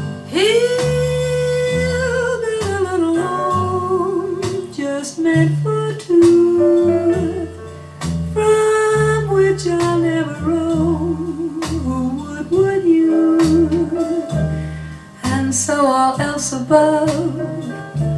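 Jazz ballad recording from a female vocal disc playing over hi-fi loudspeakers: a lead melody line with vibrato, sustained on a long note at the start, over a bass line and chords.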